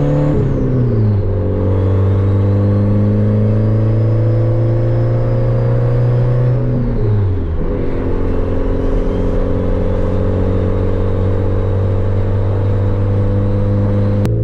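Honda hatchback engine heard from inside the cabin, pulling through the gears under moderate acceleration. The pitch climbs slowly and drops sharply at two upshifts, about half a second in and again about seven seconds in. A faint high whine rises and falls with the revs.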